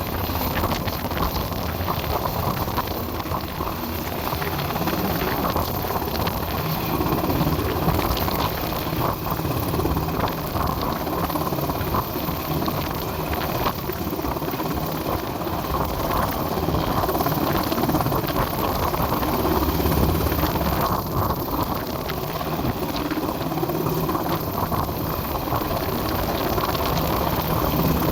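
Coast Guard rescue helicopter hovering overhead, its rotor and turbine engine running steadily, mixed with strong wind buffeting the microphone.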